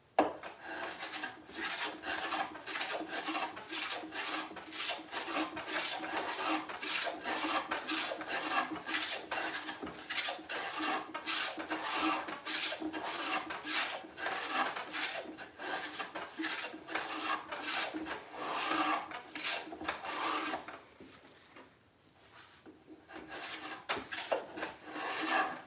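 Hand plane taking quick, short strokes along the edge of a wooden drawer side, shaving it down to fit. The strokes come several a second, stop for about two seconds near the end, then start again.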